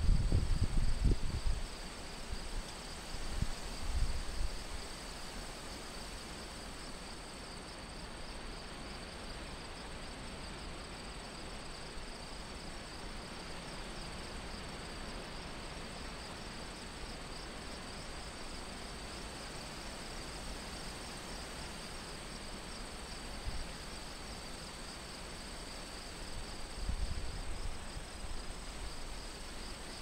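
Steady chorus of crickets and other insects trilling in the fields, a fast, even, high-pitched pulsing that never stops. Wind buffets the microphone in low gusts in the first few seconds and again near the end.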